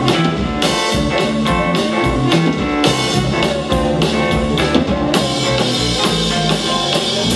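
Live rock band playing an instrumental passage: drum kit, keyboard, electric guitar and trombone. From about five seconds in, the cymbals wash more continuously over the beat.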